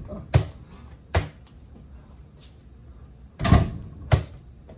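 A small, soft mini basketball knocking against an over-the-door hoop's backboard and door and bouncing on the floor: two sharp knocks in the first second or so, then a louder, longer rattling hit about three and a half seconds in, followed by another knock.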